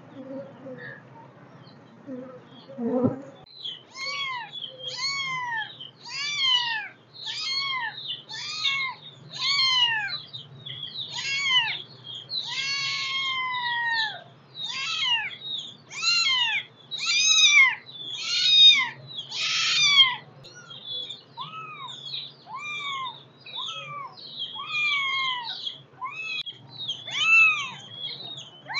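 Young kittens mewing over and over in high-pitched calls, about one a second, each rising and then falling in pitch. The calls start a few seconds in.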